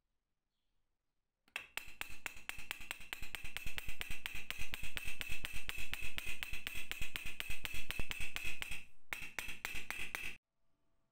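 Rapid, even hammer blows on the hardened steel axe head, about five or six a second, each with a short metallic ring. They start abruptly, pause for a moment near the end, resume, then stop suddenly.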